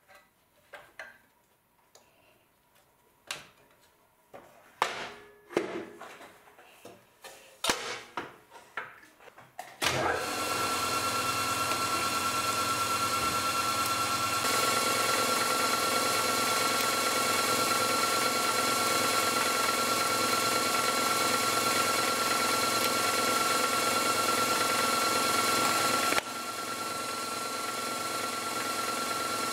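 Scattered clicks and knocks as the V-belt and pulley guard of a Myford lathe are handled. About ten seconds in, the lathe starts and runs steadily at its top spindle speed, about 1,540 rpm, a steady whine over the running noise. The spindle turns in plain bearings near their limit, and the sound gets slightly quieter near the end.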